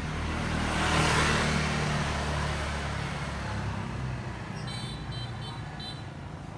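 A motor vehicle's engine passing close by on the street, loudest about a second in and then fading away. From about five seconds in there is a run of short high chirps.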